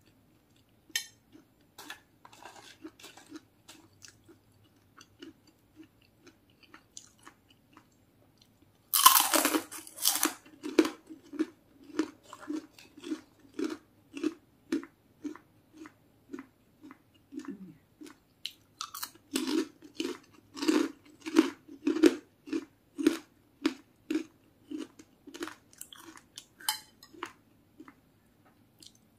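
A person chewing crunchy food. There is a loud crunching bite about nine seconds in, then steady rhythmic chewing at roughly two chews a second. Another louder patch of crunching comes around twenty seconds, and the chewing fades near the end.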